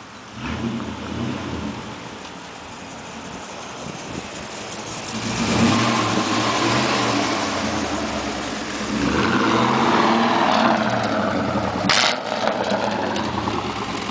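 Truck engine being revved, its exhaust giving a fart-like blat: a short blip about half a second in, then two longer, louder revs before settling back. A sharp click near the end.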